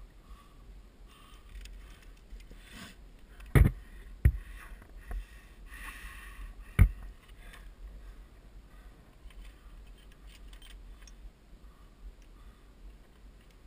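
Trad climbing on a sandstone crack: scraping and rustling of the climber and gear against the rock, with three sharp knocks a few seconds in, over a steady low rumble.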